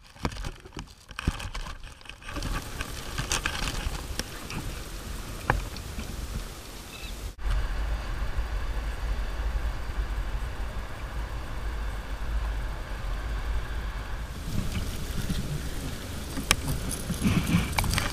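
Wind buffeting the microphone of an action camera mounted low on a kayak, with water sloshing against the hull and a few sharp clicks.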